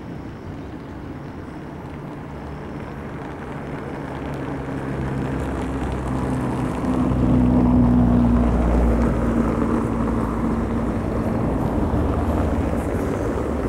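An engine passing by: a steady drone with a few held low tones that grows louder over several seconds, peaks about eight seconds in, then slowly fades.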